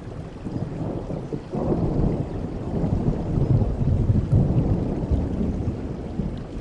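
Rain falling steadily with a low rumble of thunder that swells about a second and a half in, is strongest in the middle and fades near the end.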